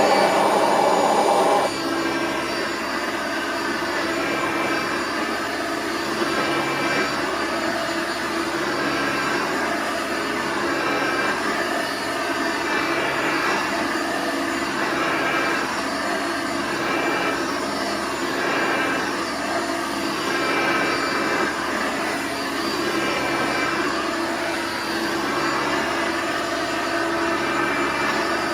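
Hoover Elite Sprint bagged upright vacuum cleaner running after being switched on. It is loudest for the first second or so, then settles into a steady run with a slight pitch or whine, its level swelling and dipping about every two seconds. The owner guesses the whine is normal for this budget model.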